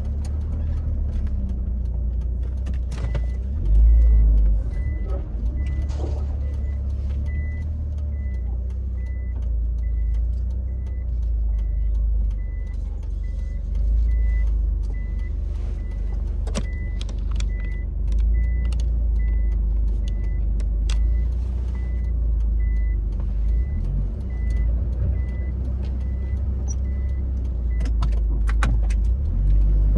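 Mitsubishi Lancer Evolution running over a disused road: a low, steady engine and road rumble with occasional sharp knocks and clatters. A thin high beep repeats about one and a half times a second, starting a few seconds in and stopping near the end.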